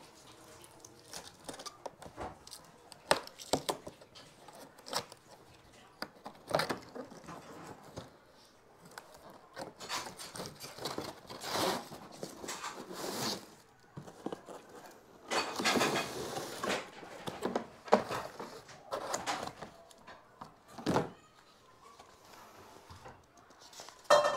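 Cardboard packaging being handled and slid open by hand, with rustling and scraping of cardboard and paper and scattered knocks and thunks.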